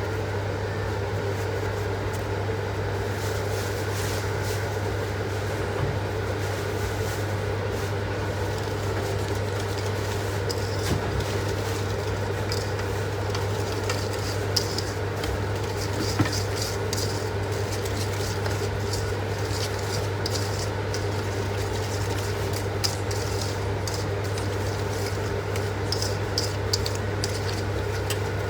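Light clicks and clinks of kitchen utensils against dishes, scattered irregularly over a steady low hum.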